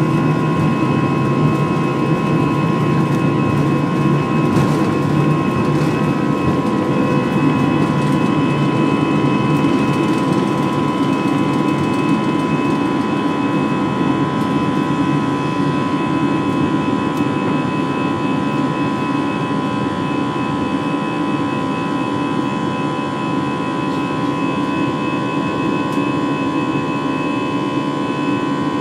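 Airbus A320 jet engines at takeoff thrust heard inside the passenger cabin during the takeoff run and climb-out: a steady loud roar with several steady whining tones. A low rumble underneath fades out in the first ten seconds or so.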